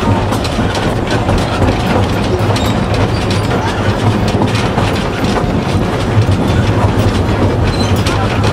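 Narrow-gauge (760 mm) railway carriage running along the track, heard from on board: a steady rumble with many scattered clicks and knocks from the wheels on the rails.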